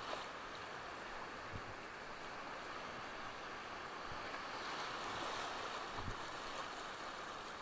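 Surf washing and small waves breaking in the shallows: a steady rush that swells a little past the middle, with a few low thumps of wind on the microphone.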